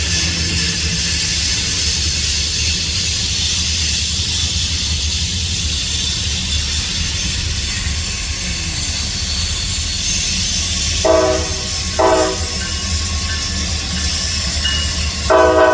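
Norfolk Southern tank-car freight train rolling past with a steady rumble and hiss. About eleven seconds in, a locomotive air horn sounds two short blasts, then a longer blast starts near the end.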